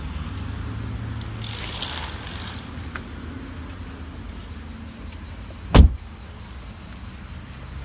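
A car door is swung shut with one heavy thump near the end, over a steady low rumble.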